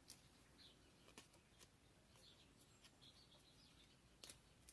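Near silence: a few faint ticks and rustles of fingers handling a strip of masking tape, the clearest about four seconds in, with faint high chirps in the background.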